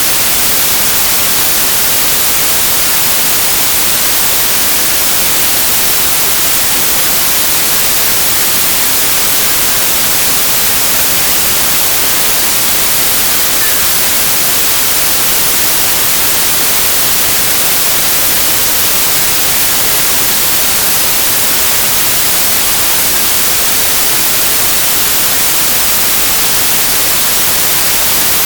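Loud, steady white-noise hiss, strongest in the high frequencies and unchanging throughout.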